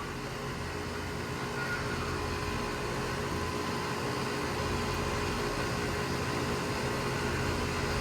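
Outdoor unit of a 1.5-ton Trane XR14 heat pump running with a steady hum of motor and fan.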